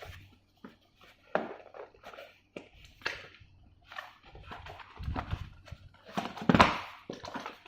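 Plastic vacuum parts and packaging being handled: a series of irregular clunks, knocks and rustles, the loudest a knock about six and a half seconds in.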